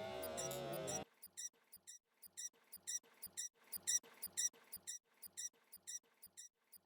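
Suspense music cuts off sharply about a second in. A faint string of sharp, high ticks follows, about three a second and slightly uneven.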